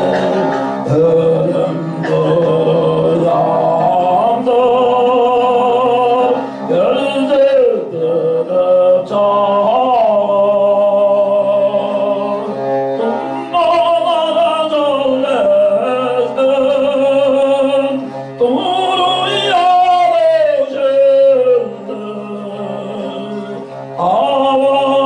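Tuvan throat singing: a man holds a steady low drone while a clear, whistle-like overtone melody moves above it, broken by short breaths. A Tuvan bowed fiddle accompanies him.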